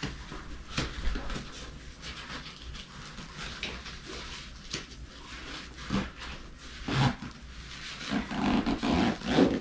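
Handling noise from fitting a nylon reserve-parachute pouch onto a paramotor harness: fabric rustling and scattered clicks and knocks as the zipper is lined up. Short low grunts of effort come near the end.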